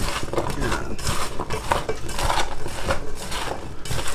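Chunks of raw potato, carrot, onion and bell pepper tossed by hand in a metal bowl, knocking and rattling against its sides in quick, irregular clatters.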